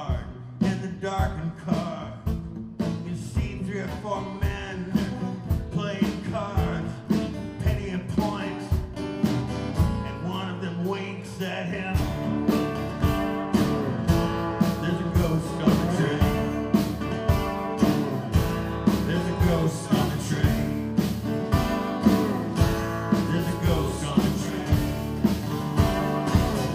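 Two acoustic guitars strumming a steady beat while a lap steel guitar plays sliding lines over them in an instrumental passage, growing fuller about halfway through.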